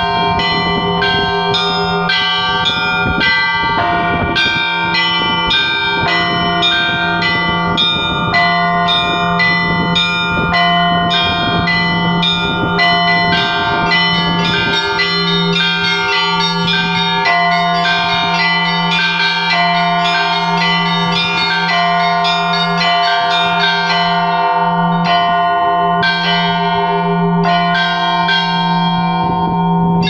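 Russian Orthodox church bells rung by hand from the belfry (zvon): small bells struck in a quick, continuous rhythmic pattern over the steady low hum of a larger bell.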